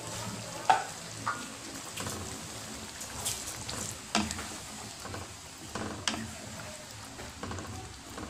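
Wooden spatula stirring a simmering coconut-milk stew of shrimp and vegetables in a metal wok: irregular knocks and scrapes of the spatula against the pan over a steady hiss from the cooking liquid.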